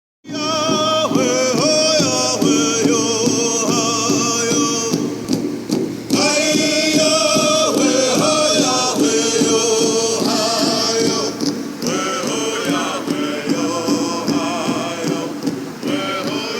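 Music: a song with singing.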